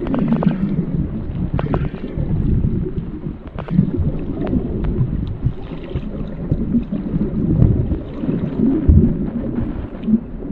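Muffled underwater rumble of water moving around an underwater camera, uneven in level, with scattered faint sharp clicks.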